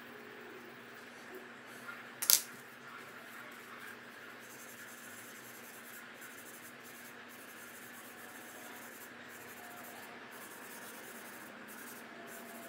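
Faint scratching and rubbing of a graphite pencil and fingertips on drawing paper as shading is laid down and blended, with one sharp click about two seconds in as the pencil is set down on the table.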